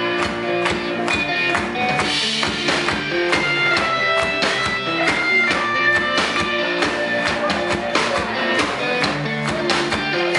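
Live rock band playing: electric guitars, bass guitar and drum kit, loud and steady with a regular drum beat.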